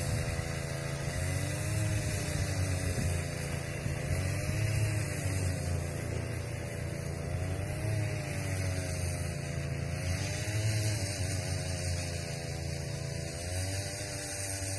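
Electric motor hum of a miniature diesel locomotive running on a garden-scale railway, steady, with a pitch that slowly wavers up and down.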